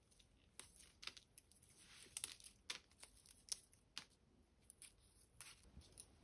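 Faint crackling and rustling of clear plastic flower wrapping and leafy stems as leaves are stripped from the stems by hand, with small sharp ticks scattered throughout.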